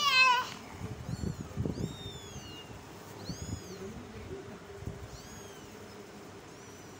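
Young kittens mewing: a loud meow right at the start, then a string of thin, high-pitched mews about every second, with a few soft thumps in the first two seconds.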